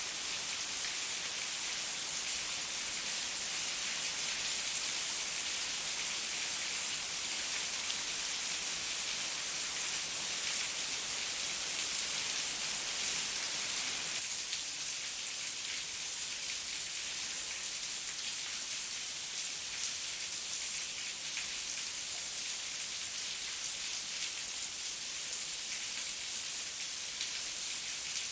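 Heavy rain falling steadily, a dense, even hiss of many drops. About halfway through, the deeper part of the sound eases a little.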